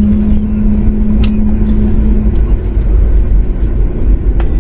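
Cabin noise of a Boeing 737 MAX 8-200 rolling on the ground after landing: a loud, steady low rumble, with a steady hum that stops about two seconds in and a sharp click about a second in.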